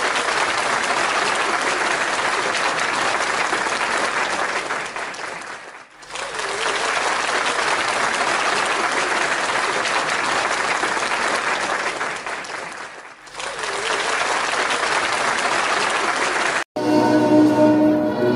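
Crowd applauding, the clapping fading away and coming back twice. Near the end it cuts abruptly to music.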